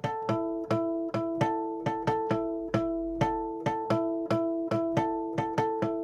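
Guitar playing the intro solo in natural harmonics at the 7th fret, alternating between the 5th and 4th strings: slow, evenly spaced plucked notes, about two to three a second, each left ringing.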